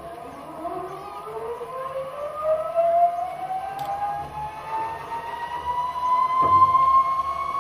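Zipwire trolley pulleys running along the cable, a whine that rises steadily in pitch as the rider picks up speed, over a low rumble. A single knock comes near the end.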